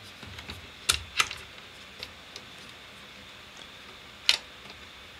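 Bolts and the mounting arm of a scanner turntable being handled and fitted together by hand: a few sharp clicks and taps, two close together about a second in and another loud one near four seconds, with lighter ticks between.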